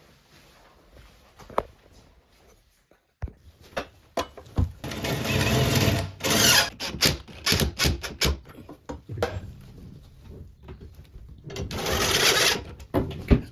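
A power tool running in several short bursts, with sharp knocks in between.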